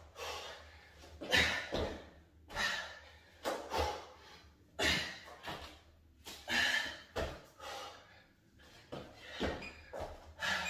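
Repeated thuds of a dumbbell and feet on a rubber floor mat during push-ups, jumping jacks and dumbbell snatches, about one every second.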